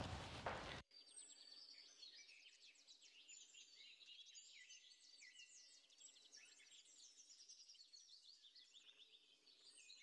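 Faint birdsong: many small birds chirping in short, quick calls, quietly throughout after a brief noisy sound that cuts off suddenly less than a second in.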